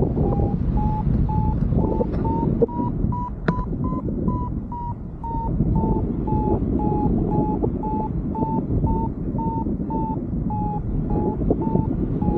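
Paragliding variometer beeping about twice a second, its pitch rising a little and then easing back. This is the climb tone, which sounds while the glider is in rising air. Wind rushes over the microphone underneath.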